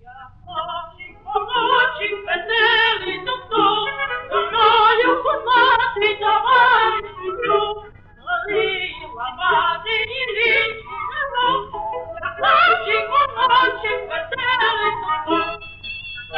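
Cartoon soundtrack song on an old, narrow-sounding sound-film recording: a high voice sings with a fast, wide vibrato over a faint low hum. About a second before the end, steady held instrumental notes take over.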